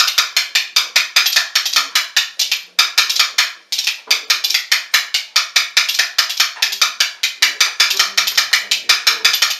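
Pair of spoons held back to back and played as a rhythm instrument, struck against the knee and the other hand: a fast, steady run of sharp clacks, about five or six a second, with two brief breaks about three and four seconds in.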